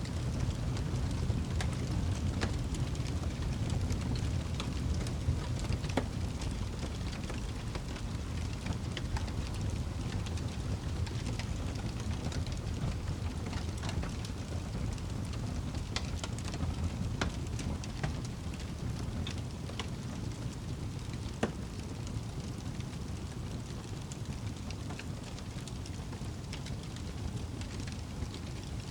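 Wood fire burning in a fireplace: a steady low rumble of flames with irregular crackles and pops from the logs.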